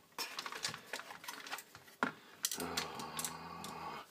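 Clicks and knocks of plastic and metal parts being handled in a partly dismantled micro stereo: screwdriver work and cable connectors and clips being freed, with a sharp knock about two seconds in. A steady low hum rises up for a second or so in the second half.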